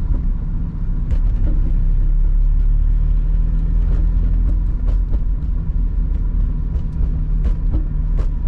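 Inside a moving rear-wheel-drive manual car: heavy, steady low rumble of tyres on a rough road surface under a faint engine hum, with a few scattered light taps.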